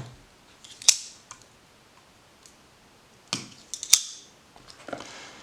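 Backlock of a steel-bolstered folding knife clicking as the blade is opened and closed: a sharp click about a second in, then two louder clicks about half a second apart, two-thirds of the way through.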